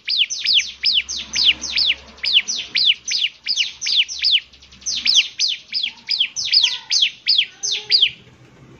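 A ciblek (bar-winged prinia) singing a 'semi' song: a rapid, even string of high downward-sweeping notes, about four or five a second, that breaks off shortly before the end.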